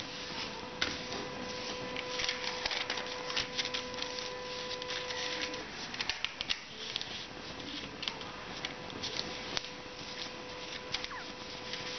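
Sheet of paper being folded and creased by hand: irregular rustling, crinkling and light taps as it is pressed and turned. A steady hum runs underneath and drops noticeably about halfway through.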